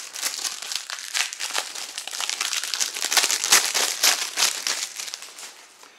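Cellophane shrink wrap being peeled and pulled off a CD jewel case: a dense run of crackles, loudest a little past the middle, that dies away near the end.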